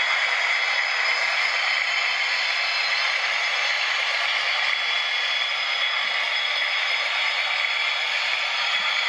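Hornby OO gauge Mark III coaches rolling past on model railway track: a steady, even rattle of small metal wheels running on the rails.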